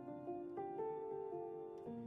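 Instrumental background music: a melody of held notes over a soft accompaniment.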